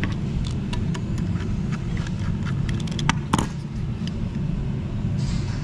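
Clatter from handling a charge tube fitted with hose clamps and silicone boots on a workbench: a run of small clicks and taps, with two sharper knocks that ring briefly about three seconds in, over a steady low rumble.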